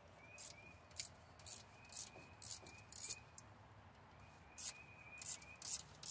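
Ratchet wrench clicking in short rhythmic strokes, about two a second with a brief pause midway, as a 7/16 exhaust header bolt is backed out.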